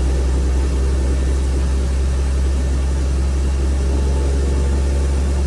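Car's engine and road noise heard from inside the cabin while driving, a steady low drone that neither rises nor falls.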